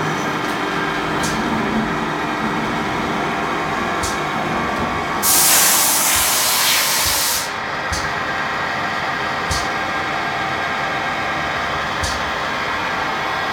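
Hyundai-Kia SKT-21 CNC turning centre running, heard through its closed door: a steady machine hum with occasional faint ticks. About five seconds in comes a loud hiss of spray lasting about two seconds.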